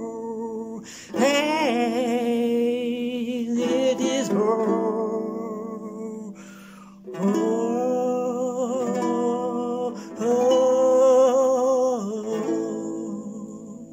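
A man singing long held notes, their pitch wavering, over his own strummed small acoustic guitar. The singing breaks off briefly twice, and the last note fades out near the end.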